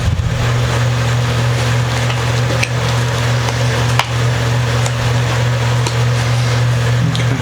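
A steady low hum with a hiss over it, broken by a few faint sharp clicks, about a third, half and nine-tenths of the way through.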